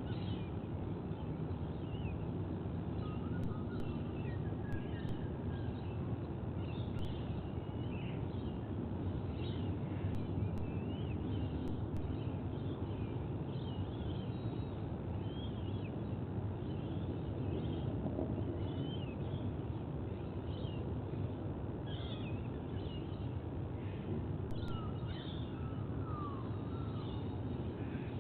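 Outdoor nest-camera ambience: a steady low rumble with many short bird chirps and calls scattered throughout.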